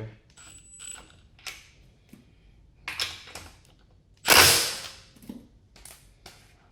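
Milwaukee M18 Fuel cordless impact driver fired in several short bursts while running a lug nut back onto a wheel stud. The loudest and longest burst comes about four and a half seconds in.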